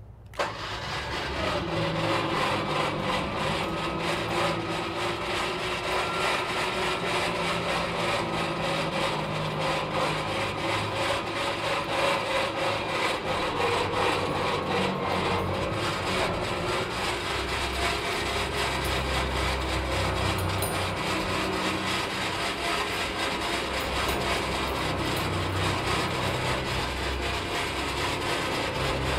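Switch-N-Go hydraulic hoist on a Hino 195 truck working steadily, the truck's diesel engine and hydraulic pump running under load as the hoist arm pulls a steel roll-off dumpster up off the ground. A continuous mechanical hum with a few held tones starts about half a second in.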